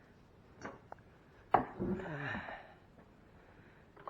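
Plastic ice-maker parts knocking as they are handled and pushed into place: a light knock, then a sharp knock about one and a half seconds in. A short falling vocal sound follows the sharp knock.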